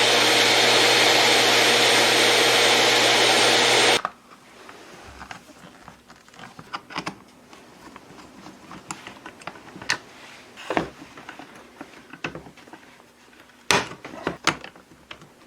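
A small electric motor running steadily with a whine, which stops abruptly about four seconds in. Light scattered clicks and knocks follow, with a brief cluster of louder knocks near the end.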